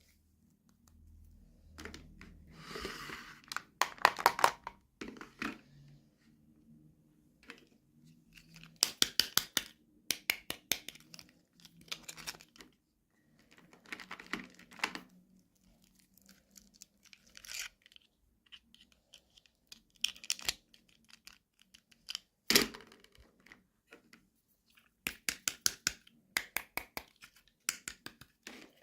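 Packaging being handled and torn open by hand: repeated bouts of crinkling and crackling, a dozen or so short clusters with quiet gaps between, and a sharp snap about two-thirds of the way through.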